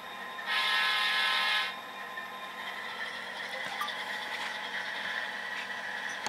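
Tsunami sound decoders in model diesel locomotives (Kato AC4400 and SD40-2) played through their small onboard speakers: one horn blast of about a second, starting about half a second in, over the steady diesel engine sound.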